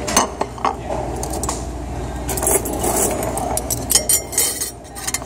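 Metal cutlery clinking in scattered short clinks, in clusters near the start, around three seconds in and around four seconds in, over a steady low background hum.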